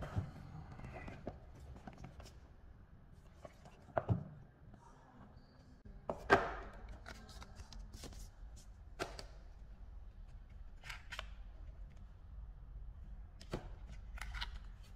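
Hands handling an earbuds box and its packaging: scattered clicks, taps and light rustling, with the loudest knock about six seconds in and another about four seconds in.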